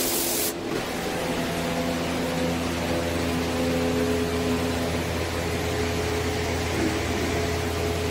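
Paint spray gun hissing as it sprays, cut off abruptly about half a second in. Then a steady machine hum carrying a few held tones.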